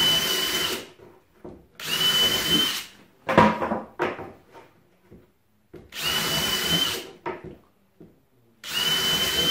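Cordless drill boring holes through small scrap-wood blocks in four short bursts of about a second each, each with a steady high motor whine. Between the bursts come short knocks as the wood pieces are handled.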